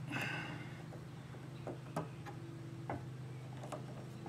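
Small scattered metal clicks and ticks as a spring hose clamp is worked onto a rubber fuel line, with a short scraping sound at the start, over a steady low hum.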